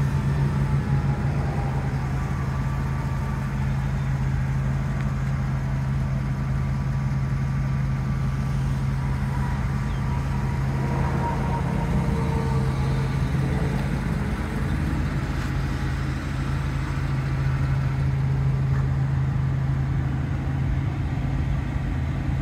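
A steady low mechanical hum, unchanging throughout.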